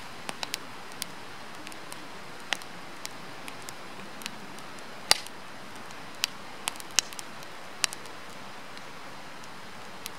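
Firewood burning in a campfire: a steady soft hiss with irregular sharp crackles and pops, the loudest about five seconds in.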